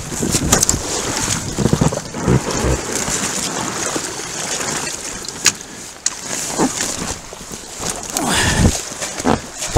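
Nylon spray deck and inflatable packraft rustling and knocking against a body-mounted camera as the paddler gets out of the boat, with irregular thumps throughout and wind buffeting the microphone.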